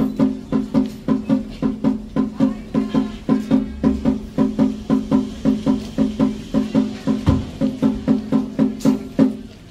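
Shamisen accompaniment for a puppet dance: sharp plucked notes struck about four times a second in an even rhythm, stopping shortly before the end.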